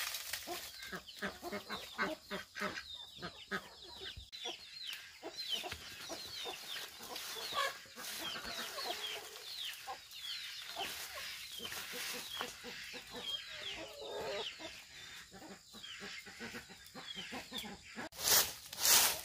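Chickens clucking, with a steady stream of short, high, falling cheeps. Near the end there are a few loud rustling scrapes.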